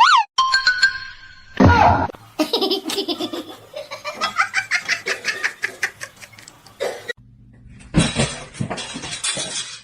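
A person laughing hard in quick repeated bursts, among short sounds that are cut off abruptly.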